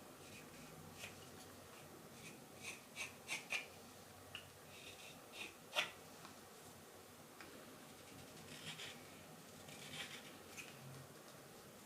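Wood carving knife making short slicing and shaving cuts in green wild cherry, a scattered run of quick scrapes with the sharpest stroke about six seconds in.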